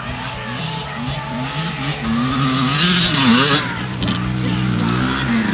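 Dirt bike engine revving up and down as the bike rides over snow, its pitch climbing and dropping with the throttle. A loud burst of hissing noise comes about three seconds in.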